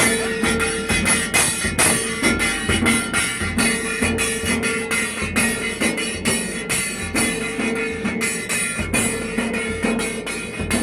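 Dhol drums beaten in a fast, steady rhythm, with a held higher tone that comes and goes over the beats.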